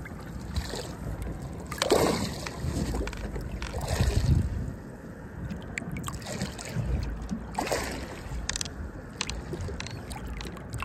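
Water splashing at the boat's side as an Australian salmon, held by the tail in the water, kicks and swims off, with several separate splashes over a low rumble.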